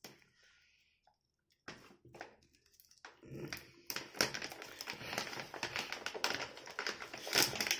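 Plastic snack pouch crinkling and rustling as it is handled. After a near-silent start come brief rustles about two seconds in, then nearly continuous crinkling from about three seconds in.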